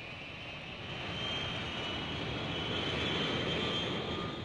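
Jet airliner flying past: a rushing rumble with a high whine that rises a little, swelling to a peak about three seconds in and then fading.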